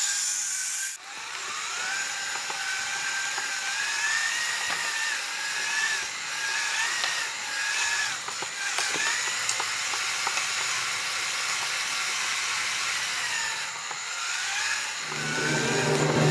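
LEGO EV3 robot race car's electric motors and plastic gears whining as it drives, the pitch wavering up and down as its speed changes.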